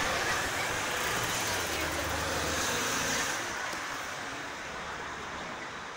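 Road traffic on a city street. One vehicle's engine hums close by and fades away a little past halfway, leaving the general traffic noise.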